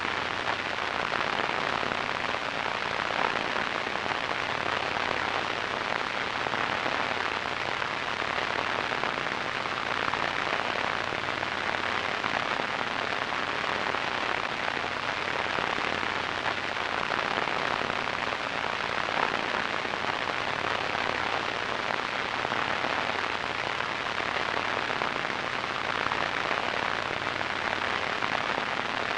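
Radio static: a steady, unbroken hiss, strongest in the middle and upper range, with no tones or breaks.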